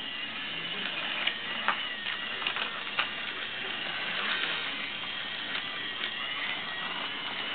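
Battery-powered My Little Pony Friendship Express toy train running on its plastic track, its small motor and gears whirring steadily, with a few sharp clicks in the first three seconds.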